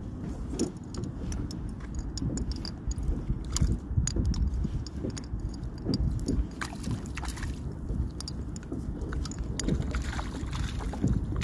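Water sloshing and lapping against a small fishing boat's hull over a low steady rumble, with scattered light clicks and taps from handling the rod, reel and line.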